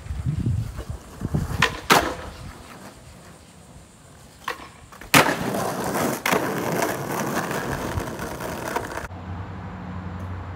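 Skateboard clacks as the board and wheels strike concrete, then about five seconds in a loud landing followed by the wheels rolling on rough asphalt for several seconds. Near the end the rolling cuts off, leaving a steady low hum.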